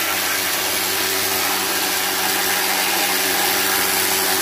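A machine running steadily: an even, unbroken hiss over a low constant hum, with no change in speed or load.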